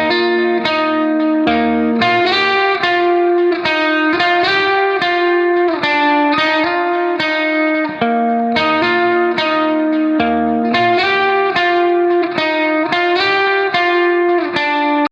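Background music: plucked guitar notes, about two a second, over a low bass line.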